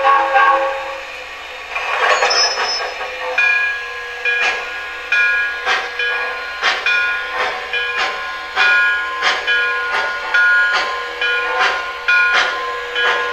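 Sound system of an MTH two-rail model B&M steam locomotive, played through its onboard speaker: a short whistle toot, a hiss of steam about two seconds in, then steady chuffing at about one and a half beats a second as the engine pulls away, with a ringing tone recurring on the beat.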